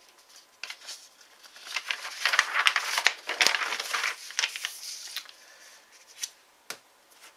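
A sheet of paper instructions being turned over and slid about on a cutting mat, rustling and crinkling for a few seconds with some sharp crackles, then a few lone paper clicks.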